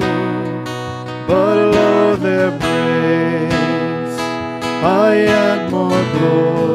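A hymn sung to strummed acoustic guitar, with slow, held notes.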